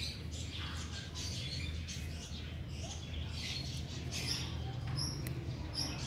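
Small birds chirping now and then in short calls, over a low steady rumble.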